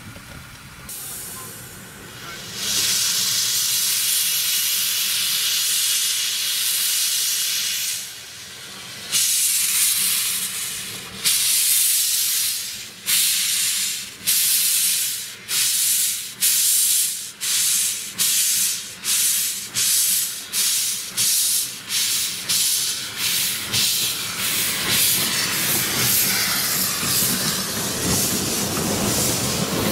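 Narrow-gauge steam locomotive pulling away. A steady hiss of steam lasts several seconds, then exhaust chuffs begin about two seconds apart and quicken to several a second, nearly running together near the end.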